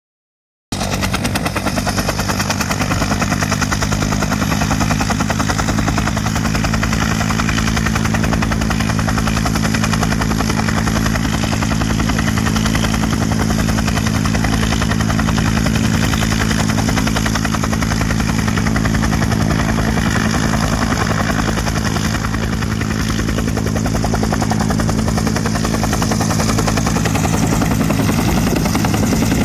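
Bell UH-1 Huey helicopter running on the ground before takeoff, its main rotor giving a fast, steady chop over the steady hum of the turbine.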